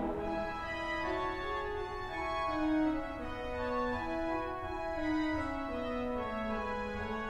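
Pipe organ playing softly: a slow line of steady held notes moving from pitch to pitch, after a louder full chord releases right at the start.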